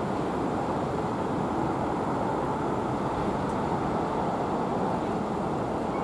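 Steady road traffic noise: an even rumble of passing and idling vehicles, with no distinct events.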